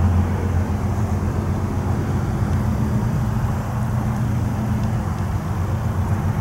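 Approaching diesel locomotive running, a steady low engine rumble with a spread of rolling noise.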